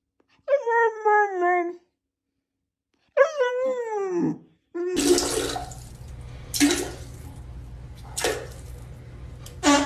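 An animal gives two drawn-out wailing calls, each sliding down in pitch. About halfway through it gives way to a steady wash of running water, broken by several short splashy bursts.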